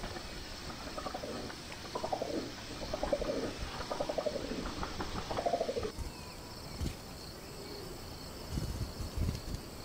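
Bird-of-paradise giving a run of about five buzzy calls, each falling in pitch. A few low thumps follow in the second half.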